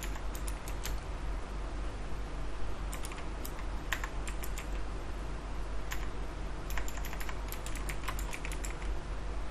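Computer keyboard keys clicking in short bursts of typing with pauses between, the busiest run coming about two thirds of the way through, over a steady low hum.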